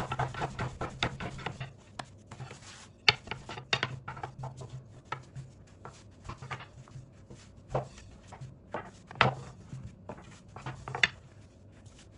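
A thin wooden rolling pin (oklava) rolling out soft yeast dough on a wooden table. There is a quick run of rattling clicks in the first two seconds, then scattered sharp knocks of the pin on the table.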